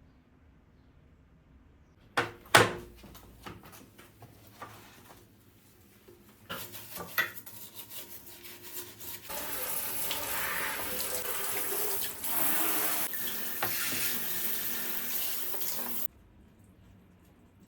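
A couple of sharp knocks and light clatter, then a tap running water into a sink for about seven seconds before it is shut off abruptly.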